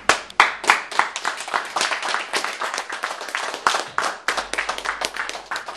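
Audience applauding at the end of a spoken-word poem: many separate sharp hand claps close together.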